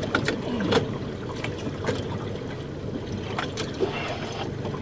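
A boat's motor running at idle with a steady hum, water sloshing against the hull, and scattered short splashes and knocks.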